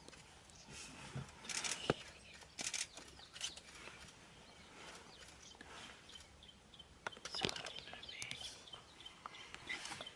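Quiet bush ambience: scattered rustles and clicks, with a faint, evenly repeated chirp from about six seconds in.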